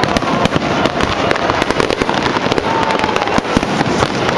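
Fireworks going off in a dense, continuous run of bangs and crackles, with a few short, slightly falling whistles.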